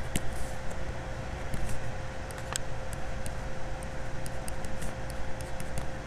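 Steady low background hum and hiss with a faint constant tone, under scattered light ticks and taps of a stylus writing on a tablet.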